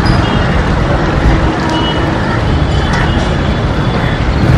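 WDM-3A ALCo diesel locomotive running light (no train attached), its 16-cylinder ALCo 251 engine chugging loudly and steadily as it passes through.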